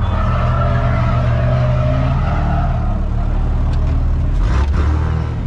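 A drift car's engine running steadily, its pitch shifting down about three seconds in.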